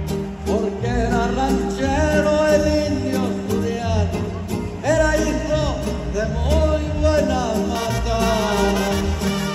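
A live mariachi band playing a ranchera, with trumpets and guitars carrying the melody over a steady bass.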